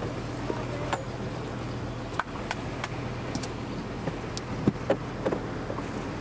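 Steady low hum under an even hiss of wind and water on an open boat at sea, with scattered sharp clicks and two louder knocks about two-thirds of the way through.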